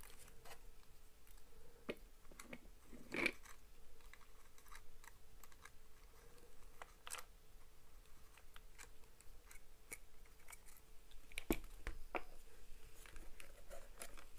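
Faint scattered clicks and rustles of hands handling a small plastic gear motor, its wires and the chassis plate of a robot-car kit, with a sharper click about 3 s in and a couple more near the end, over a faint steady hum.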